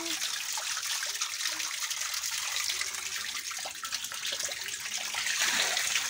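A jet of water pouring into a fish tank, with a steady splashing hiss as it churns the surface.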